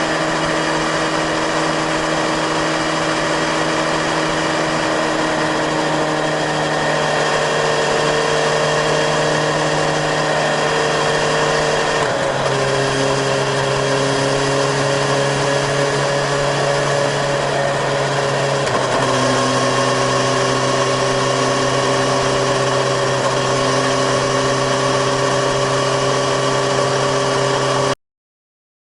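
Suzuki GSX-S1000GT's inline-four engine and exhaust running steadily at high revs while the motorcycle cruises at constant speed, with a hiss of wind rush underneath. The engine pitch shifts in steps three times, then the sound cuts off suddenly.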